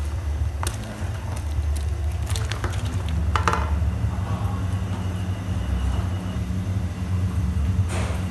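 Corn cobs tipped from a plastic basin into a large stainless pot of boiling water: a few knocks and splashes, one with a short metallic ring, over a steady low rumble.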